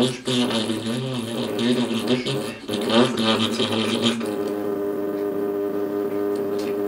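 A man's voice droning on a low steady pitch, its overtones sweeping up and down. About four seconds in it settles into one steady held tone, which stops abruptly near the end.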